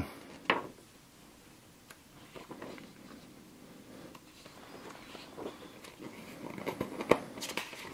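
Paper pages of a board-game playbook being leafed through: soft rustles and light ticks, with a sharper tick about half a second in.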